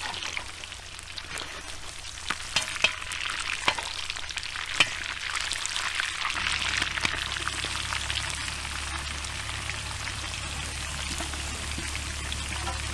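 Lamb pieces frying in hot oil in a kazan: a steady sizzle, with the metal skimmer clicking against the pot a few times in the first five seconds. The sizzle swells about halfway as sliced onions go into the oil.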